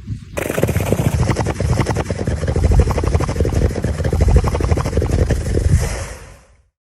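A seal snoring: one long, rough, rattling breath of rapid pulses, fading out near the end.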